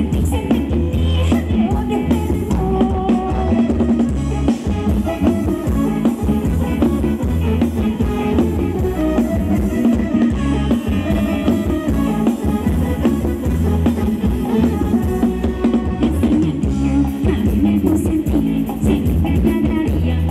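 Live Thai ramwong dance music from a band, played loudly through a PA system: a steady drum-kit beat over heavy bass, running without a break.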